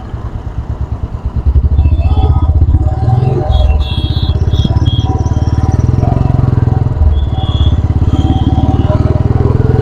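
Royal Enfield Classic 350's single-cylinder engine running on the move, a steady low exhaust thump; softer at first, it grows louder about a second and a half in and then holds.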